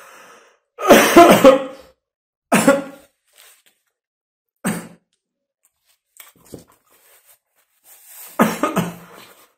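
A man coughing in fits after food went down the wrong way while eating: a loud run of coughs about a second in, then two shorter single coughs, a few faint ones, and another run of coughs near the end.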